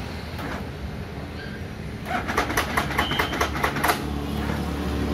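Benelli Cafe Racer 1130 being started: a fast run of mechanical clicks, about five or six a second, for roughly two seconds in the middle, over a steady low hum, without the engine catching.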